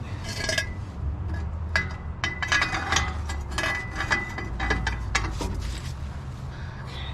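Hand tools clinking and tapping against metal while loosening rusted bolts, a rapid irregular series of sharp clinks, with a faint high ring held for a few seconds in the middle.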